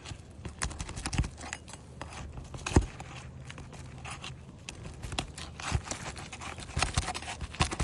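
Roof snake prying and scraping under asphalt shingles, with irregular clicks, knocks and tearing as the brittle shingle breaks apart; a sharper knock comes about three seconds in.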